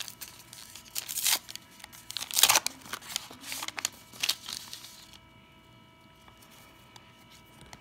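Foil wrapper of a 1991 Upper Deck baseball card pack being torn open and crinkled, a series of crackling rips with the loudest a little over one and two and a half seconds in; it dies down after about five seconds.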